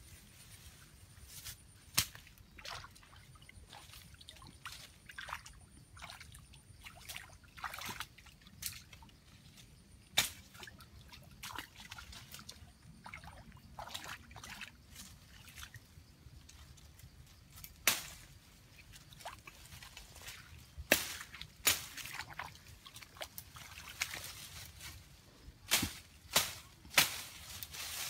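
Footsteps wading through shallow muddy water: irregular splashes and sloshes, with a cluster of louder, sharper splashes in the last third.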